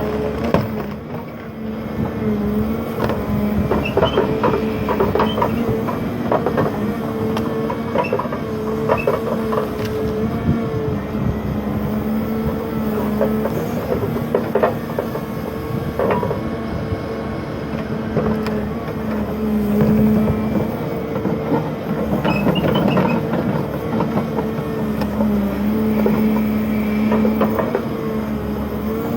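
A machine's engine running steadily, with frequent irregular knocks and cracks over it.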